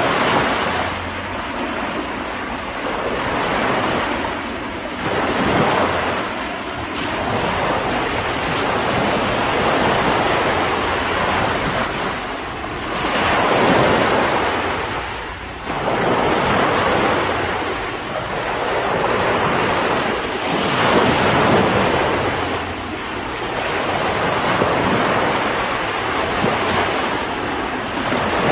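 Sea waves washing in, a steady rush that swells and ebbs every several seconds.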